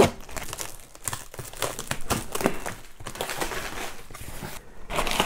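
Thin plastic bag wrapping being torn and pulled off a taped cardboard parcel: irregular crinkling and rustling of the plastic.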